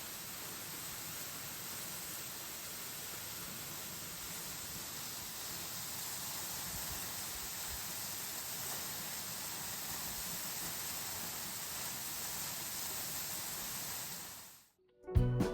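A steady, even hiss with no rhythm or distinct events. It cuts off just before the end, where music begins.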